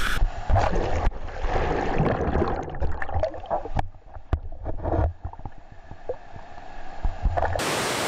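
Splashing and rushing water as a man slides headfirst down a waterfall into the pool, heard muffled and gurgling from water level with many sharp knocks. Near the end the steady rush of the waterfall takes over.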